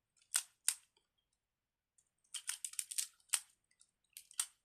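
Sharp plastic clicks from handling fidget toys: two near the start, a quick run of clicks in the middle, and a few more near the end.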